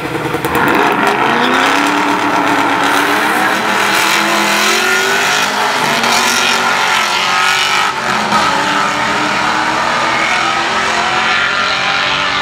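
A Honda Civic's VTEC four-cylinder and a Holden Commodore's V8 launching side by side off a drag strip start line. Both engines rev hard from about half a second in, the pitch climbing and dropping back at each gear change several times as the cars accelerate down the strip.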